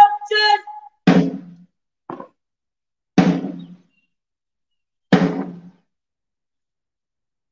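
A held call ends, then a drum is struck three times, slow and evenly spaced about two seconds apart, each beat ringing briefly, with a softer tap between the first two.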